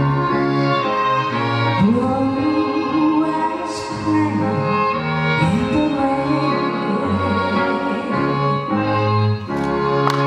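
Instrumental passage of a slow ballad accompaniment led by bowed strings, with a melody that slides between notes over changing bass notes. Clapping starts right at the end.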